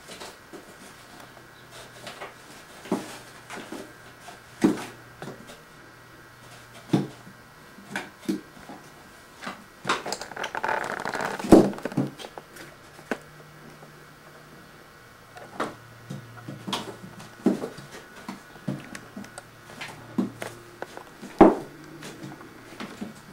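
Siamese kitten pawing and clawing at a cat scratcher: scattered knocks and taps at irregular intervals, with a longer stretch of scratching about ten seconds in. The loudest knocks come at about eleven and a half and twenty-one seconds.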